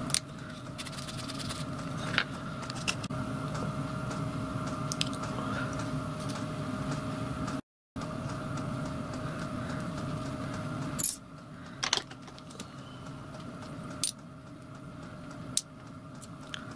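A workshop machine's motor hums steadily with a held tone, then cuts out about two-thirds of the way in. Several sharp metallic clicks follow as a small steel handle ball and the vise are handled.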